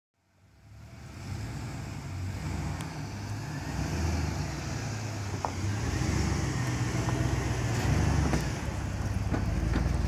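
Pickup truck engine running as the truck drives slowly past, a steady low rumble that fades in over the first second.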